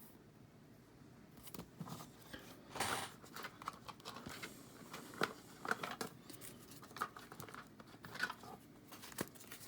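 Pokemon trading cards in plastic sleeves being handled and flipped through: quiet, irregular clicks, slides and plastic rustles.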